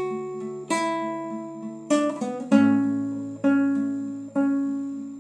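Solo acoustic guitar playing chords, each struck chord ringing out and fading before the next, roughly one a second, with a deeper bass note joining about halfway through.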